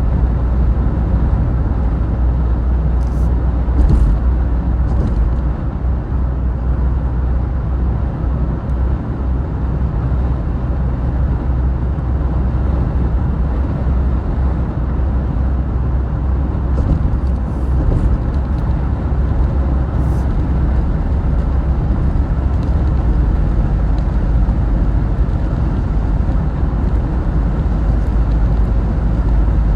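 Steady rumble of a vehicle driving at highway speed, mostly low road and engine noise, with a few faint ticks.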